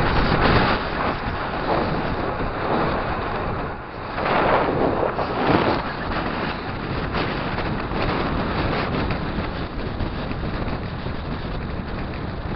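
Wind buffeting the microphone at descending speed: a steady rush with louder gusts near the start and again around four to six seconds in.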